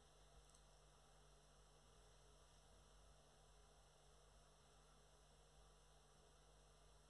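Near silence: a faint steady low hum and hiss, with one faint click about half a second in.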